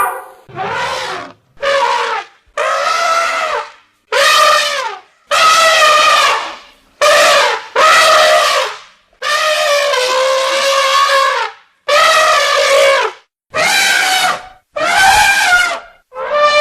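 Elephant trumpeting: about a dozen loud, pitched calls in quick succession, each from half a second to two and a half seconds long, separated by short silences.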